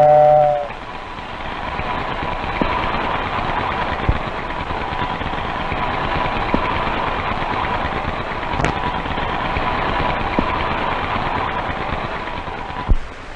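Lionel model steam locomotive running on its track: a steady, even mechanical noise with a faint steady tone and a few scattered clicks. A held tone cuts off in the first second.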